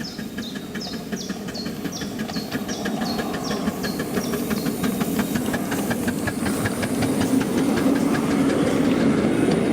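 Miniature steam locomotive running, its exhaust beats quickening over a steady hiss of steam that grows steadily louder.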